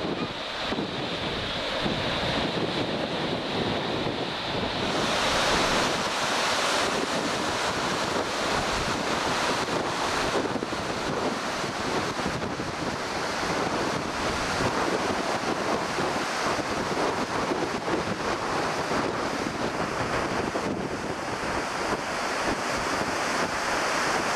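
Storm wind buffeting the microphone over surf washing onto a rocky shore, a steady rushing noise that grows louder and brighter about five seconds in.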